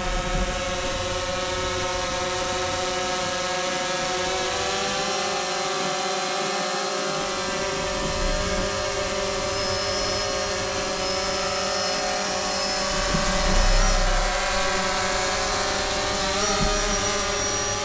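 Quadcopter drone's propellers buzzing steadily while it hovers carrying a baited fishing line, the pitch rising about four to five seconds in as the motors speed up to fly it out.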